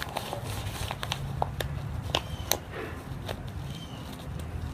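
Snap fasteners on a nylon pouch's belt straps being pressed shut by hand: a run of small sharp clicks with light fabric handling, over a low steady hum.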